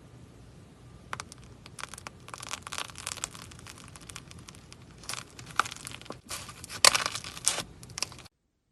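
Slime being worked by hand, giving dense crackling, crinkly pops that start about a second in, with the sharpest pops near the end, and then cut off suddenly.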